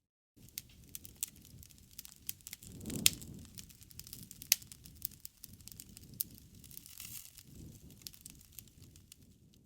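Campfire crackling: burning wood gives off irregular sharp pops and snaps over a low rumble of flame. The loudest pop comes about three seconds in, with a brief swell of the low flame noise around it, and another sharp pop comes about a second and a half later.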